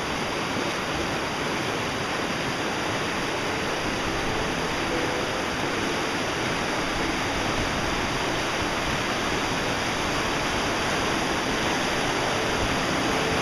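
Mountain stream rushing over rocks in shallow rapids: a steady, even rush of water.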